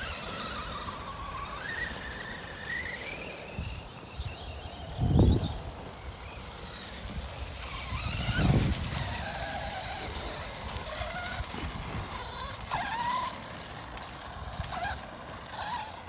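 Arrma Big Rock BLX brushless RC truck driving through the woods on 3S: a motor whine that rises and falls with the throttle over a steady rustle of tyres and chassis. Two louder low thumps come about five and eight and a half seconds in.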